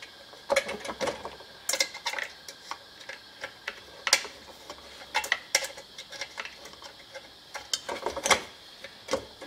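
Irregular metallic clicks, taps and scrapes of a screwdriver against screws and metal parts under a homemade Stirling engine's diaphragm, as it is worked at a hard-to-reach screw. The strongest clicks come about four seconds and eight seconds in.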